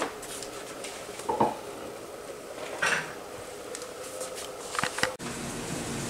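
Kitchenware being handled: a few separate clinks and knocks of pots, a lid or utensils, loudest about one and a half seconds in.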